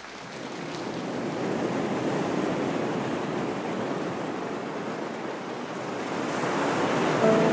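Ocean surf washing in a steady rush that swells up, eases a little and builds again. Soft sustained musical notes enter just before the end.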